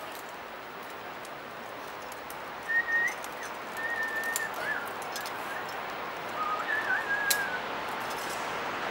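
Thin whistled notes in a few short, slightly wavering phrases over a steady background hiss, with a few faint clicks.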